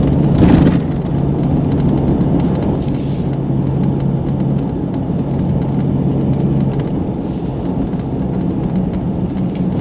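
A Jeep Cherokee on the road: a steady engine drone over dense rumbling road and tyre noise. The engine note steps up in pitch about seven seconds in.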